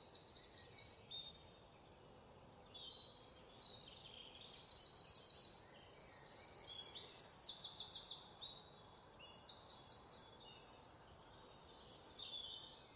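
Faint nature ambience of small birds chirping in quick, high trills, one overlapping another, with a short gap or two.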